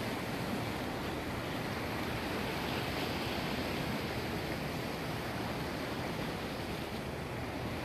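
Steady, even rushing noise with no distinct events, like wind, surf or a constant hiss.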